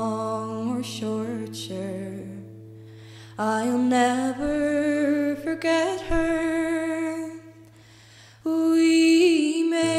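A slow song sung in phrases over a held low drone and sustained chord tones, the voice sliding between notes with vibrato. The music thins out to quiet twice, around three seconds in and near eight seconds, before the next phrase comes in.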